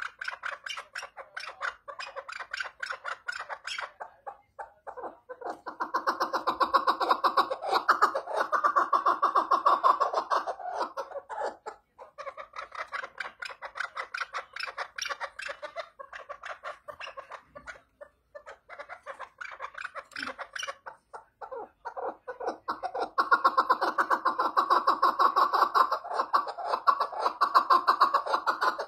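Chukar partridge calling: a long run of rapid, repeated clucking notes, in bouts that grow louder about six seconds in and again from a few seconds before the end.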